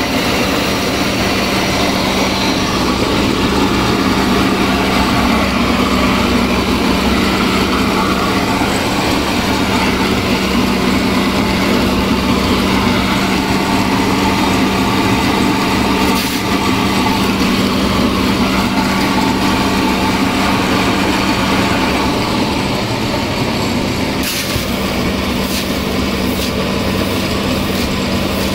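Electric flour mill running steadily with a loud, constant hum and drone while grinding dry corn into meal. A few sharp clicks come in the last few seconds.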